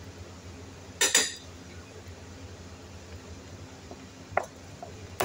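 Metal fork and spoon clinking against a plate: a quick double clink about a second in, then single clinks near the end.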